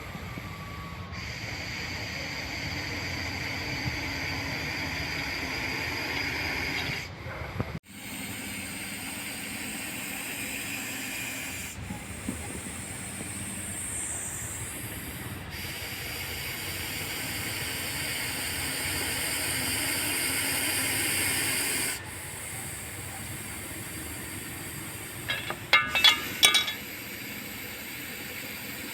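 Russell's viper hissing, a steady breathy defensive warning hiss that goes on in long stretches. A short burst of sharp clicks comes near the end.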